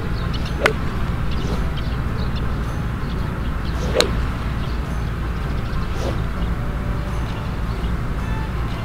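Two sharp clicks of a driver striking golf balls, about three seconds apart, with a fainter third strike about six seconds in, over a steady low rumble.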